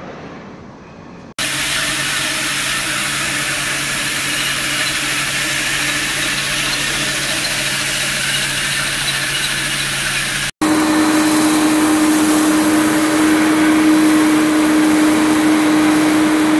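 Industrial machinery running steadily: a loud, even hiss with a low hum that starts abruptly about a second in. After a sudden cut about ten seconds in, a louder run follows with a strong, steady mid-pitched drone.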